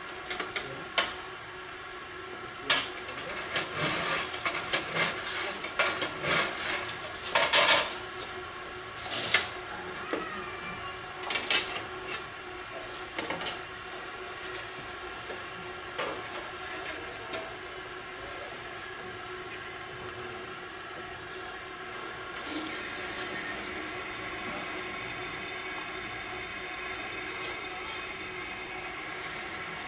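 Live-steam miniature locomotive standing still and hissing steam, with a run of sharp metallic clinks and knocks over the first dozen seconds. About two-thirds of the way through, the steam hiss grows louder and higher.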